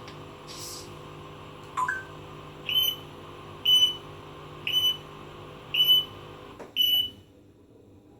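A pet parrot mimicking an electronic beep: a short whistle, then five short high beeps about a second apart, like a smoke alarm or appliance.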